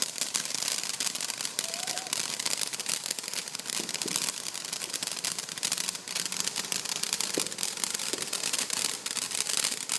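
Ground fountain firework going into its finale, spraying sparks with a dense, continuous crackle that jumps up in loudness at the start and then holds steady.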